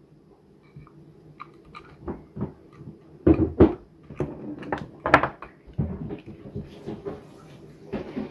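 Handling noise: irregular clicks, taps and clunks as a metal microphone body and hand tools are worked and moved about on a wooden desk, with a few heavier knocks in the middle.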